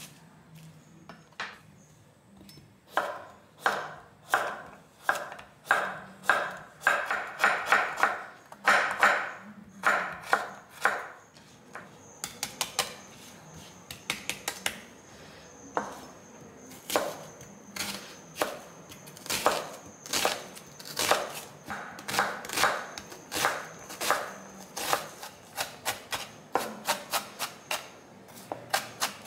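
Kitchen knife cutting vegetables on a wooden cutting board, in runs of quick, even strokes that each knock on the board: first slicing Japanese leek, then dicing an onion.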